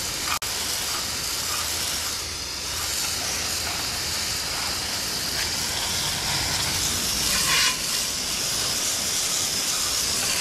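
Garden hose spray nozzle jetting water onto a motorcycle's front wheel and tyre: a steady spray hiss, with a louder patch of splashing about three-quarters of the way through.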